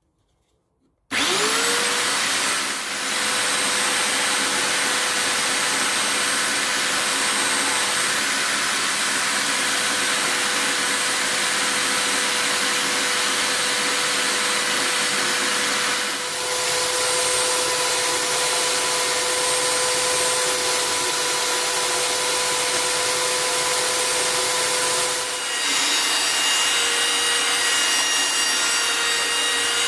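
Parkside PBSD 600 A1 600-watt belt sander, clamped upside down on a bench, switched on about a second in. It runs steadily with a high whine while sanding wood on the belt, and dips in level briefly three times.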